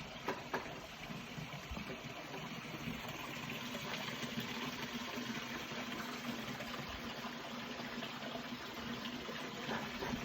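A waterfall rushing: a steady, even roar of falling water, with a couple of faint knocks just after the start.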